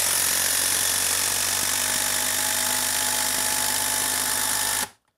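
Craftsman CMCF820 brushless impact driver on its top speed hammering a long TimberLOK screw into a log: a steady, a little bit loud hammering rattle with the motor whining. It stops suddenly near the end as the screw is driven home.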